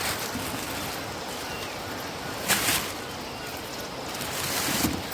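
Steady rushing of river water, with a brief sharp noise about two and a half seconds in.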